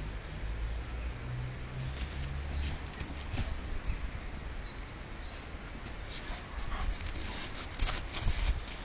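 A dog snuffling and scrabbling at a plant pot in snow, with three runs of short high squeaks and, in the last few seconds, a quick series of clicks and crunches.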